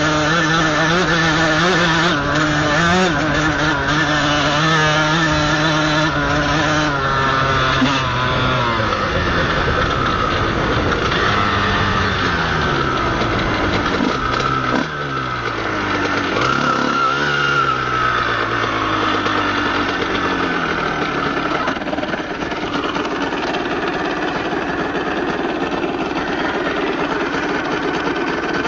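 Honda CR125 two-stroke motocross engine running under way. Its note holds steady for the first several seconds, then falls and swings up and down with the throttle, and runs lower and less distinct near the end. The uploader says the bike is being ridden slowly on a burnt clutch.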